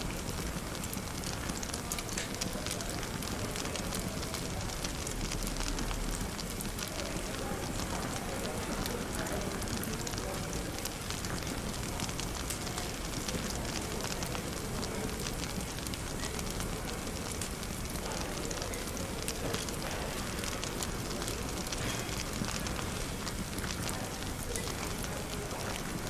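Wood fire crackling in a fireplace: a steady stream of small sharp pops and snaps over a soft hiss, with indistinct café chatter underneath.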